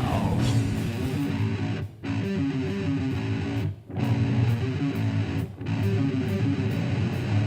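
Live metal band playing an instrumental passage led by guitar, with bass underneath. The whole band stops short for a moment three times, about two, four and five and a half seconds in.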